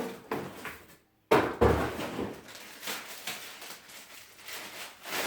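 Handling noise from unpacking a planer's box: cardboard and plastic packaging rustling and knocking as a plastic feed tray is lifted out, with a heavy thump about a second and a half in.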